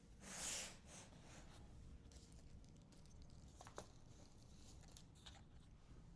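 Fabric handling in a quiet room: one short soft swish about half a second in, followed by a few faint light taps and clicks.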